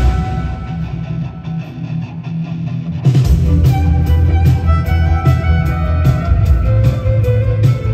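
Live electric violin and band music heard from the audience: a violin melody over electric guitar, bass and drums. The first three seconds are a thinner, quieter passage, then the full band with drums comes back in.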